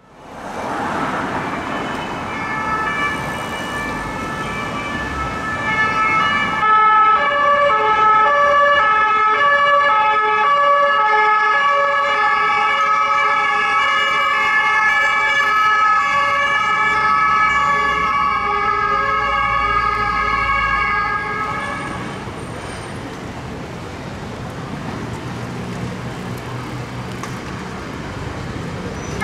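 Two-tone sirens of French Police Nationale vehicles passing in city traffic, an alternating high-low wail. Several sirens overlap and grow louder about six seconds in, then fade about twenty-two seconds in, leaving road traffic noise.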